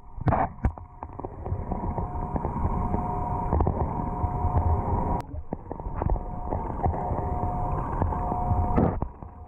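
Underwater sound in a swimming pool: a steady low rumble with a constant hum, broken off abruptly about five seconds in and again near the end.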